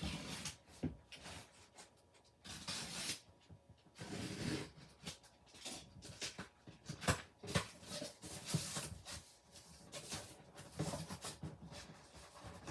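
Figure packaging being handled and opened by hand: irregular rustling and crinkling with many small clicks and taps.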